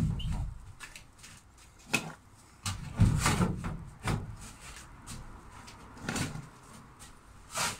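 Irregular knocks and clunks of hand tools and wood being handled overhead while a roof strip is glued and fixed in place, the loudest right at the start and about three seconds in.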